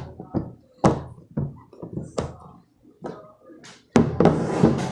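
Handling noise from a plastic slime container and slime: a few sharp knocks and taps, then about a second of rustling noise near the end.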